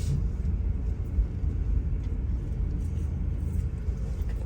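Low, steady rumble of a car, with a few faint ticks.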